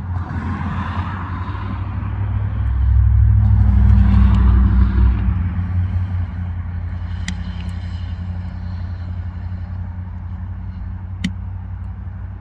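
A motor vehicle's engine running with a steady low hum, swelling louder about three seconds in and easing back. Two sharp clicks stand out later, one near the middle and one near the end.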